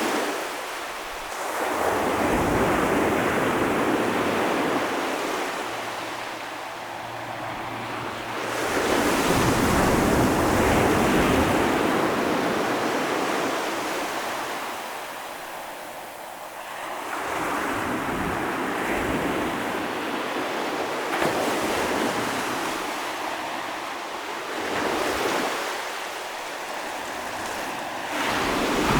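Ocean waves breaking and washing ashore, the surf noise swelling and fading in surges every few seconds.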